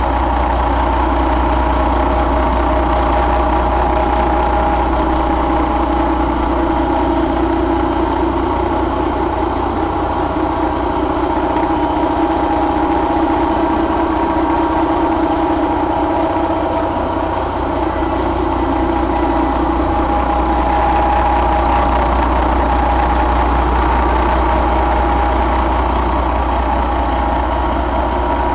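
Detroit Diesel Series 60 11.1-litre inline-six diesel engine idling steadily.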